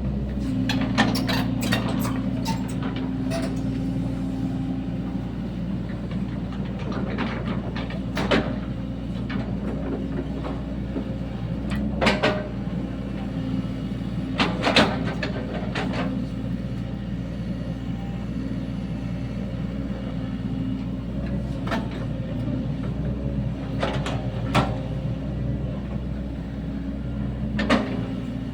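Sany SY75 mini excavator's diesel engine running steadily while it digs a ditch, with sharp knocks every few seconds, several close together near the start.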